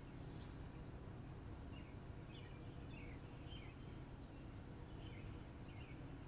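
Steady low background hum, with several short, high bird chirps that fall in pitch, starting about two seconds in.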